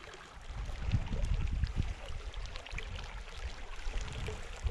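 Small shallow mountain stream trickling over rocks, with an uneven low rumble of wind on the microphone.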